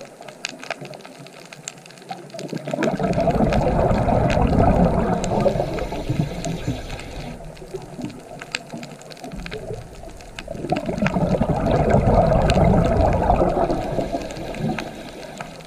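Scuba diver's exhaled bubbles rumbling underwater: two long bursts, each about four seconds, the first starting about three seconds in and the second about ten seconds in, with quieter pauses between them. Scattered sharp clicks crackle throughout.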